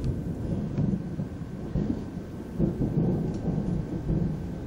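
Thunder rolling in a long low rumble that swells and fades several times.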